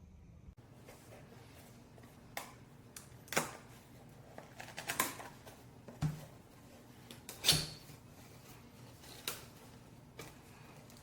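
Metal tripod ball head being handled: a series of irregular sharp clicks and knocks, the loudest about a third of the way in and again past the middle.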